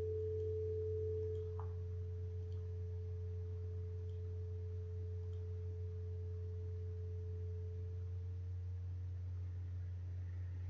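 Steady low electrical hum with a fainter steady tone above it, which weakens slightly about a second and a half in; no speech.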